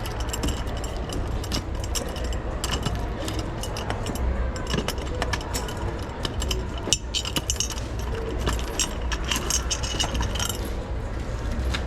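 Small metal pieces jingling and clinking in the hand over and over, busiest toward the end, over a steady low hum.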